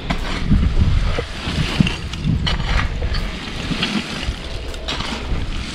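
Wind buffeting the microphone as a heavy, uneven rumble, with irregular scrapes and knocks from charcoal being raked out of an earth kiln.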